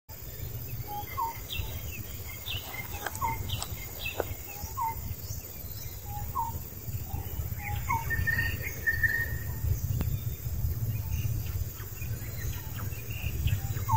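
Outdoor ambience: a bird repeating a short rising call about every second and a half, with other faint chirps, over a steady low rumble.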